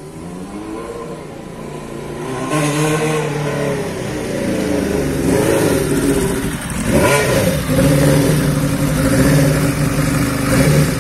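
Kawasaki ZXR750 sport bike's inline-four engine riding up at low speed and getting louder as it approaches, the revs dipping and rising a couple of times as the throttle is worked.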